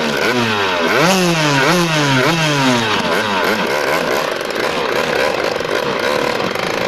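Two-stroke engine of a Tomos BT moped, fitted with an Airsal cylinder and a new exhaust, being blipped: the revs rise sharply and fall back about five or six times in quick succession. It then settles into steady running at a fairly high idle.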